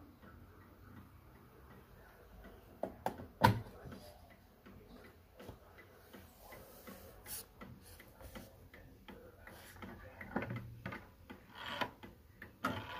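Antique Sessions eight-day mantel clock ticking softly. There is a sharp knock about three and a half seconds in, and a few louder clicks near the end as the minute hand is pushed round toward the hour.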